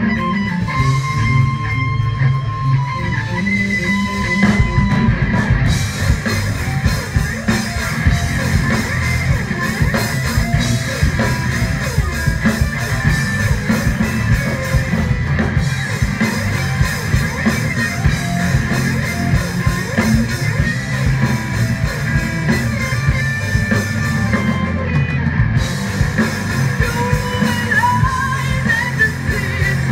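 Live rock band playing loudly: distorted electric guitars over a drum kit and bass, with a singer's voice on top.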